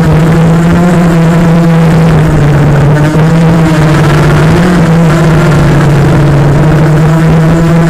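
Quadcopter's Cobra 1960kv brushless motors and propellers buzzing at a steady throttle in flight, as a strong even drone, the pitch lifting slightly about halfway through.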